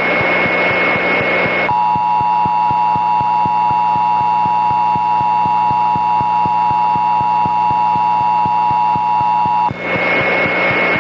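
Emergency Alert System attention signal: a steady two-tone beep held for about eight seconds, with hissing static and a high steady whistle just before and after it. Under it all runs a low hum pulsing several times a second.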